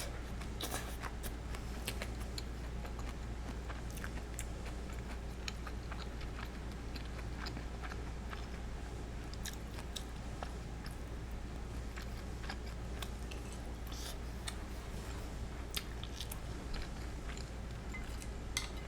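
Close-miked chewing and biting into karaage (Japanese fried chicken), with scattered soft crunches and wet mouth clicks over a steady low hum.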